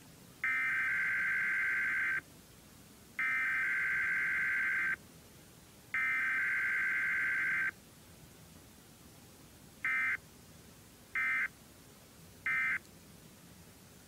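Emergency Alert System SAME data tones: three long bursts of the digital header, then three short end-of-message bursts, all sent as rapidly alternating two-pitch tones. They mark a Required Weekly Test.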